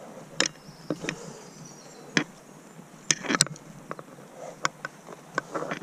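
Footsteps on a muddy woodland path, with irregular sharp snaps and cracks of twigs and dead branches underfoot, about eight in all.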